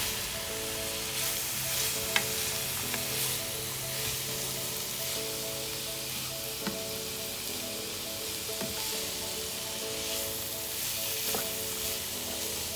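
Vegetables sizzling steadily as they fry in hot oil in a pan, with a few sharp clicks from a spoon stirring against the pan.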